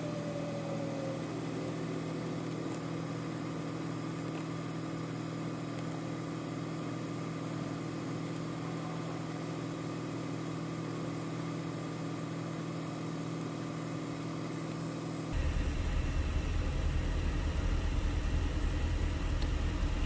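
Power-seat motors of a 2013 Porsche Cayenne driver's seat humming steadily as the seat is run through its full travel to reset the memory-seat function. The hum stops abruptly about fifteen seconds in, and a louder low rumble follows.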